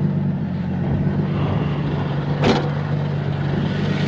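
Single-turbo Nissan 350Z HR's V6 idling steadily, with one brief sharp noise about two and a half seconds in.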